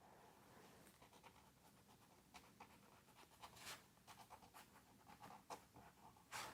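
Faint scratching of a fine-liner pen on sketchbook paper, in many short quick strokes as small berry circles are drawn.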